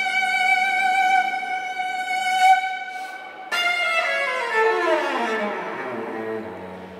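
Cello and piano playing classical music. The cello holds one long high note, then about halfway through a new phrase begins with a series of notes stepping downward in pitch.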